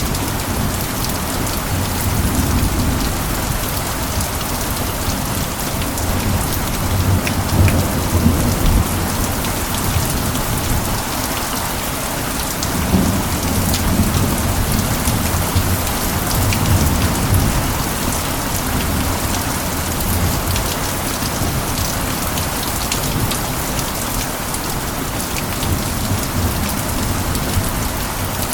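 Steady heavy rain, with fine drop ticks over a constant hiss. A low rumble swells now and then, around 8 seconds in and again a few seconds later.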